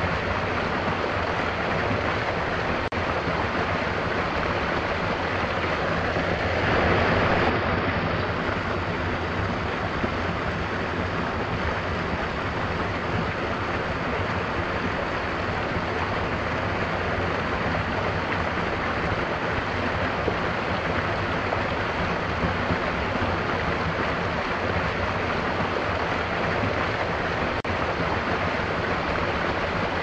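A small waterfall on a rocky stream, water spilling over stones into a pool: a steady rushing and splashing, louder for a moment about seven seconds in.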